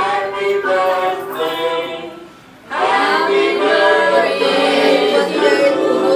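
Singing with music. The voices drop away briefly about two and a half seconds in, then pick up again.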